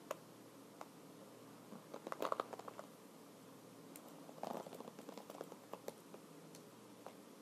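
Soft clicks of keys being tapped and typed on a computer keyboard: two short flurries, about two and four and a half seconds in, with a few single clicks between.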